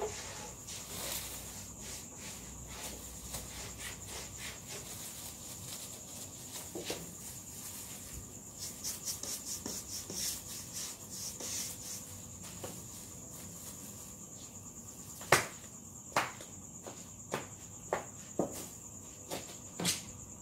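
Crickets chirping steadily as a high, continuous background. Partway through comes a stretch of quick rustling ticks as a plastic-gloved hand rubs paint onto a plywood panel. Over the last five seconds there are about seven sharp knocks and slaps, the first the loudest.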